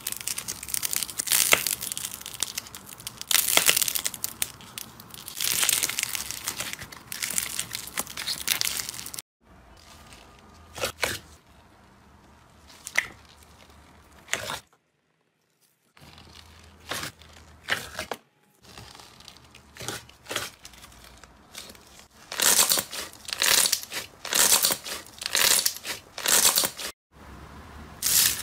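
Cloud slime stretched and torn apart by hand, giving loud crackly tearing bursts every second or two. A thick glossy slime follows, pressed and folded with quieter sticky clicks and pops. Near the end come more loud crackly bursts of slime being squeezed.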